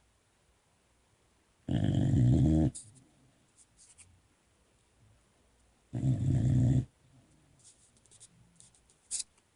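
Boxer puppy snoring in its sleep: two long snores about four seconds apart, with a brief sharp click near the end.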